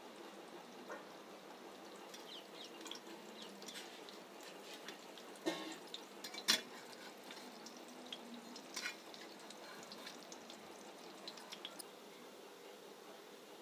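Besan dumplings frying in mustard oil in a kadhai: a faint sizzle with scattered small crackles. A few sharper clicks of a metal spatula against the pan come about five to nine seconds in, as the dumplings are turned.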